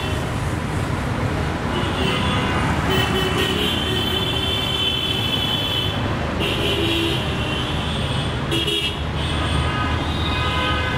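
Busy city road traffic rumbling steadily, with vehicle horns honking on and off, one held for about three seconds near the middle.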